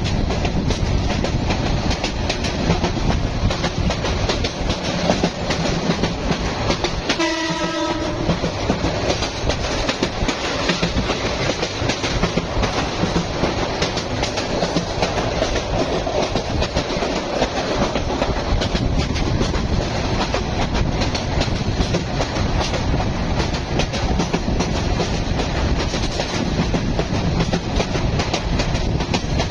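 Train running along the track: a steady rumble with wheels clicking over the rail joints. A short horn sounds once, for about a second, about seven seconds in.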